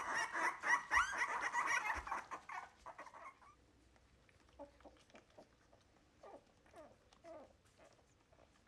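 Three-week-old wire-haired miniature dachshund puppies whining and squealing, many high-pitched cries overlapping for the first two seconds or so, then dying away to occasional faint short squeaks as the pups settle in to nurse on their mother.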